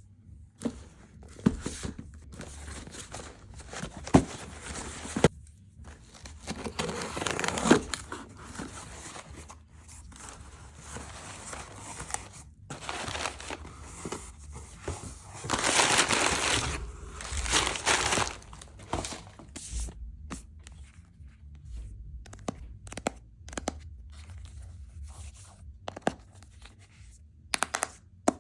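An iPhone box being unboxed by hand: paper tearing and crinkling, with sliding, rubbing and sharp taps as the packaging is handled. The longest, loudest stretch of tearing comes a little past the middle.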